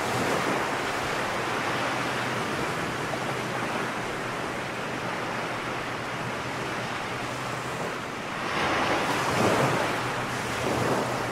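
A steady rushing noise like wind or surf, swelling about eight and a half seconds in, with a faint low hum beneath it.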